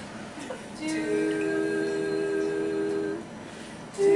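Several voices humming steady held notes together in harmony, for about two seconds starting a second in, then again louder near the end, as the starting pitch for a song.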